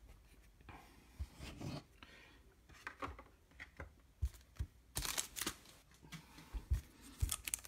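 Trading cards and foil card packs being handled and set down on a mat: scattered soft taps and shuffling rustles, with a louder burst of rustling about five seconds in.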